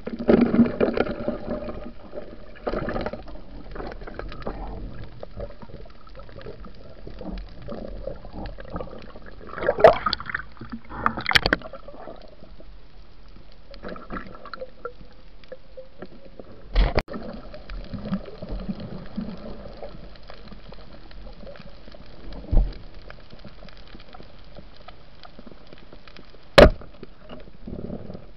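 Underwater sound picked up by a camera in a waterproof housing during night spearfishing: a steady muffled wash of water with louder bursts of churning at the start and about ten seconds in. Three sharp knocks come in the second half, the last near the end.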